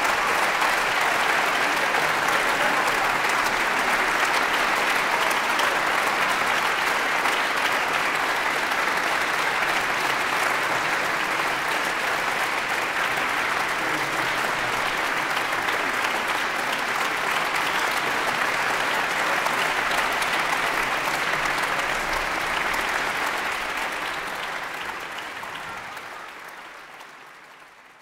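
Audience applauding in a large concert hall, a dense steady clapping that fades away over the last few seconds.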